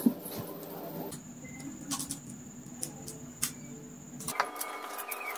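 Brown packing tape being handled and pulled off its roll, with scattered sharp clicks and crackles from the tape and scissors.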